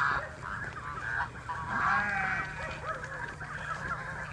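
Several domestic geese honking in a flock, a quick run of overlapping calls that is loudest about two seconds in.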